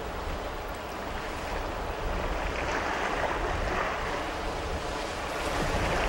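Sea waves washing onto the shore: a steady rush of surf with gentle swells.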